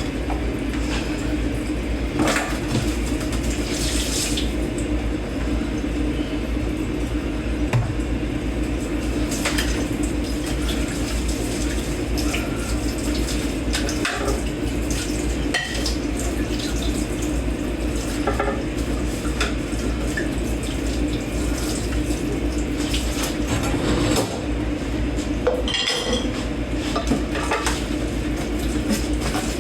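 Dishes and cutlery being hand-washed in a kitchen sink: irregular clinks and clanks of plates and forks over steady running tap water.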